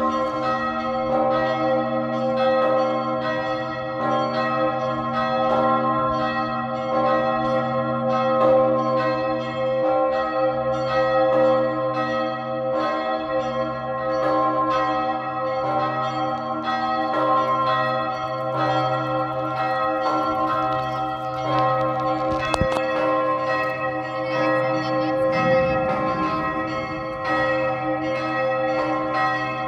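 The great bell Augustin of the White Tower in Hradec Králové, the third-largest bell in the Czech Republic, ringing. It gives deep strokes, one after another, and its low hum rings on between them.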